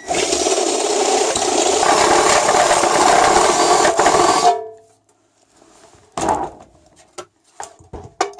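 Power drill running for about four and a half seconds as it cuts into the barbecue's metal, then stopping; a few light metal clicks and knocks follow.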